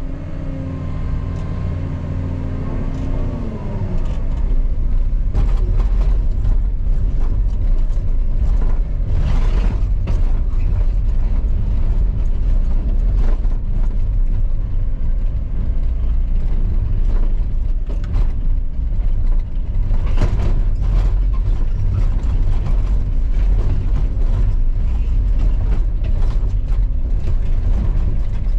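Cat 335 excavator's diesel engine rising in speed over the first four seconds or so, then running steadily loud under dense mechanical clatter.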